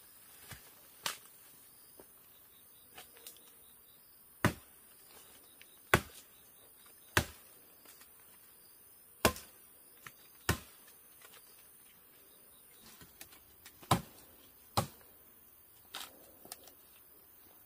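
A series of sharp chopping blows, a tool striking wood: about seven loud strikes spaced irregularly one to three seconds apart, with fainter knocks between them.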